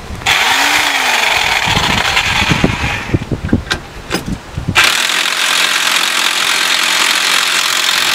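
Corded electric impact wrench running on a bolt at a car's front strut, a dense whir with uneven low hammering. About five seconds in, the hammering stops and the wrench keeps running with a steady whir.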